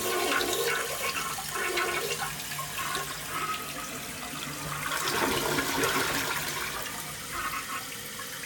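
Two-piece toilet flushing: water rushing out of the tank into the bowl and swirling down, the rush swelling again about five seconds in as the tank refills through its new fill valve.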